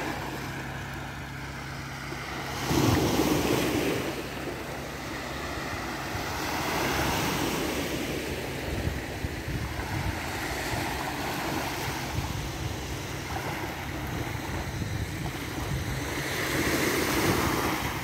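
Small sea waves breaking and washing up on a sandy shore, swelling and fading every few seconds, with some wind on the microphone.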